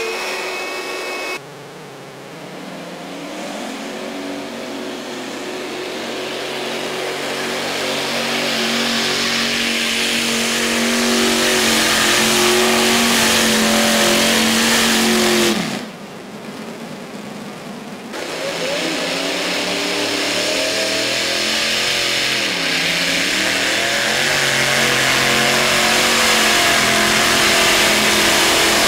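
Modified multi-engine pulling tractors running at full throttle as they drag the weight sled, the engine note building louder as each run goes on. The pitch falls away near the end of the first pull, and the sound breaks off abruptly twice where the footage cuts. It is recorded through a faulty camcorder microphone.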